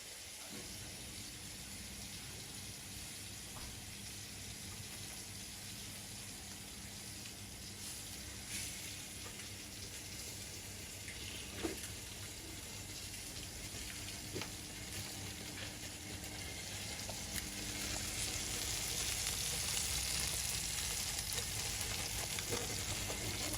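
Chicken pieces sizzling in a grill pan over low heat, a steady frying hiss that grows louder in the second half, with a few light knocks.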